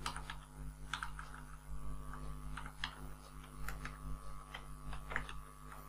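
Faint, irregular clicks from a computer mouse and keyboard while text is selected and copied in a code editor, over a steady low electrical hum.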